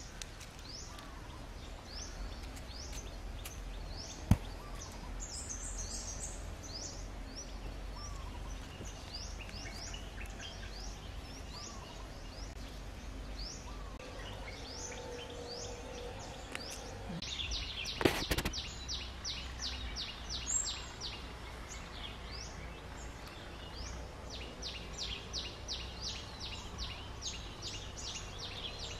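Small birds calling with short, high, down-slurred chirps about once a second, breaking into fast runs of chirps around the middle and near the end, over steady low background noise. A sharp click sounds about four seconds in, and a louder crackle comes around eighteen seconds.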